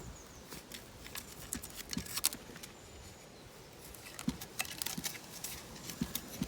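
Irregular scraping and light clicking of a hand tool working against metal engine parts, busier in the last couple of seconds.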